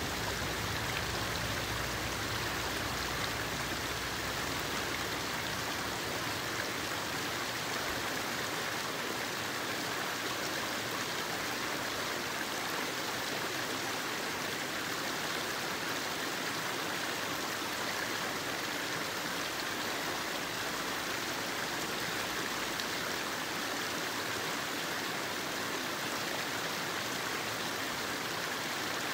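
Shallow forest stream running steadily over a stony, pebbly bed: a constant rush of water.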